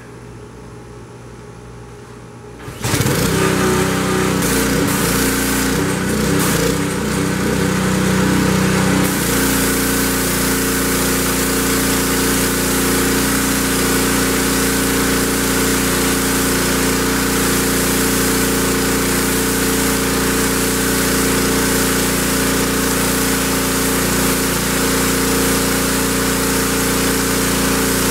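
Simpson MegaShot pressure washer's Honda GC190 single-cylinder engine starts up about three seconds in and runs steadily at its single fixed speed. About nine seconds in the wand is triggered and a high-pressure water jet hisses onto the concrete slab over the engine noise.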